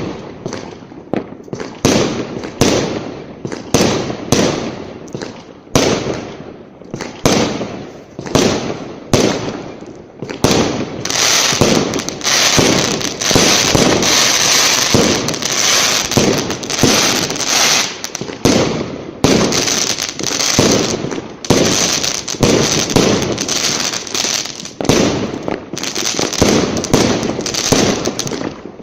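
Fireworks going off in rapid succession, dozens of sharp bangs, with a dense stretch of continuous crackling about halfway through. Recorded through a phone's microphone.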